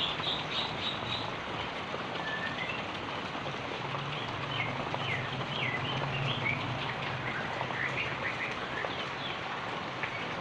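Heavy rain falling steadily, with birds chirping over it in short repeated calls, a quick run of chirps near the start and more scattered curving calls through the middle. A faint low hum sits under the rain for a few seconds in the middle.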